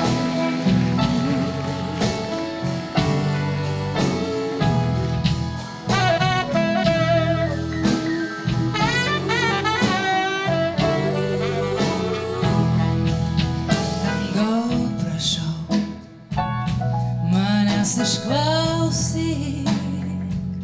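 Live band playing a slow blues-gospel number, with saxophone, electric guitar and drum kit, while a gospel choir sings wordless backing lines. The music drops off briefly about three quarters of the way through, then comes back in.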